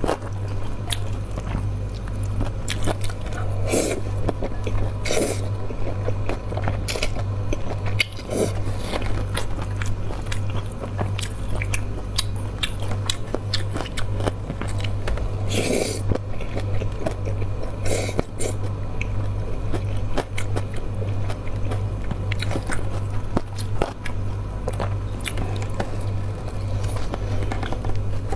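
Close-miked mouth sounds of a person eating cold noodles: steady chewing and biting with wet clicks and smacks, a few louder moments scattered through, over a steady low hum.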